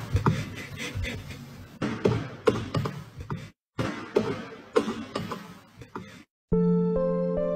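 Baby goat's hooves clattering on a hardwood floor, an irregular run of sharp taps. After a brief break, more tapping on a wooden floor, and piano music starts near the end.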